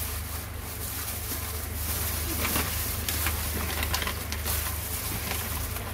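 A gloved hand squeezing and turning marinated fish pieces in a stainless steel bowl: soft wet squelching with a few light clicks, over a steady low hum.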